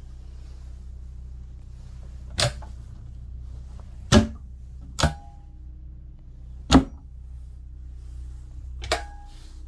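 Five sharp clicks and knocks at uneven intervals, a couple with a brief metallic ring, typical of cabinet or closet doors and their latches being opened and shut. A steady low hum runs underneath.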